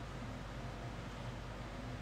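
Steady low hiss with a faint low hum underneath, unchanging throughout.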